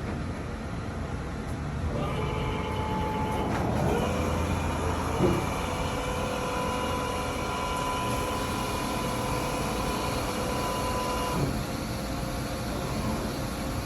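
HNK NT-16/20 CNC vertical boring mill running under power: a steady machine drone with a drive whine that comes in about two seconds in, rises in pitch a couple of seconds later and cuts off near the end, with a single knock about five seconds in.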